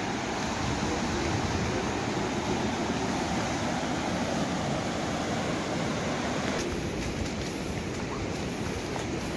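Steady rushing noise of ocean surf breaking on the beach below, mixed with wind buffeting the microphone as a low rumble. The higher hiss drops back somewhat about two-thirds of the way through.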